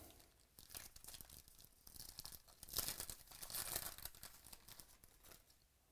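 A foil wrapper from a football card pack is torn open and crinkled by hand, in irregular crackling bursts that are loudest about halfway through.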